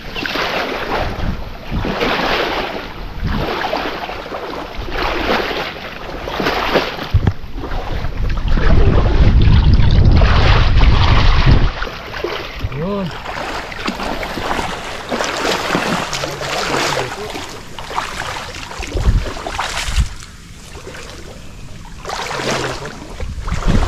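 A person wading through deep muddy water, each stride sloshing and splashing, roughly once a second. In the middle, a few seconds of heavy wind rumble on the microphone, and near the end branches and leaves rustling as he pushes into the mangrove thicket.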